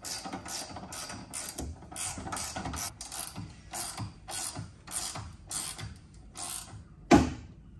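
Ratchet handle with a 13 mm socket being worked back and forth to tighten an M8 bolt and nylock nut, its pawl clicking in short runs about three times a second. A single louder knock comes near the end.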